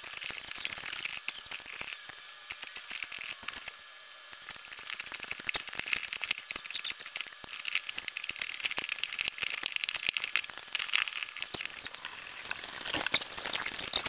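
Hands squeezing and kneading moist crumbled cake into cake-pop mixture in a plastic bowl: a dense, irregular crackle of small squishy clicks, briefly quieter about a third of the way in.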